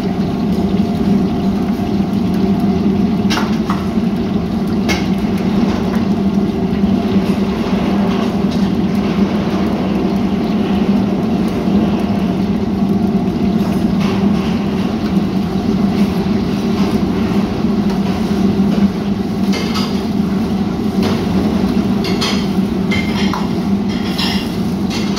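Loud steady roar of commercial gas wok burners and kitchen extraction, with scattered clinks of metal ladles and pans that come closer together near the end as a wok is stirred with a metal ladle.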